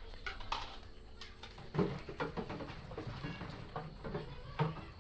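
Irregular rustling and crinkling of packaging, with light knocks, as a potted succulent or cactus is unwrapped and handled.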